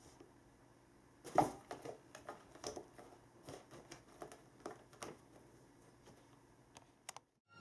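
Faint, scattered rustling and scraping as a cat paws at a Quickle Wiper's dry cleaning sheet pressed against a nylon pop-up cat tunnel. The loudest rustle comes about a second and a half in, followed by lighter ones until a few seconds before the end.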